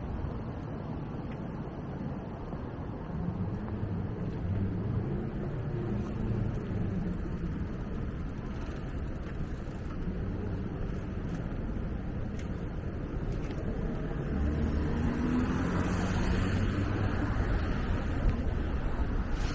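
City street traffic: vehicles running along the road as a steady low rumble. One passes closer, louder and with a swell of tyre hiss, about three-quarters of the way through.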